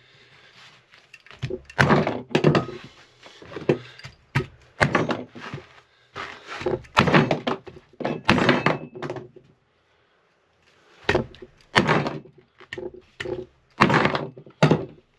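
Hand hammer tacker slammed repeatedly onto a carpet-covered wooden pad on a workbench to drive staples: a long irregular run of sharp thunks, with a short pause just after the middle. The tacker was jamming on old staples already loaded in it.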